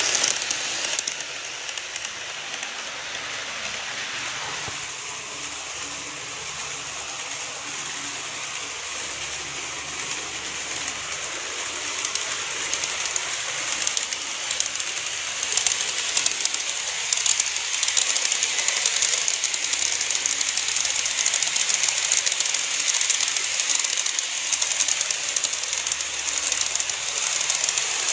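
KATO model electric trains running along the layout track: a steady high hiss of wheels rolling on the rails with fine rapid clicking. It drops about a second in as one train moves away and grows louder again from about halfway as another train approaches and passes.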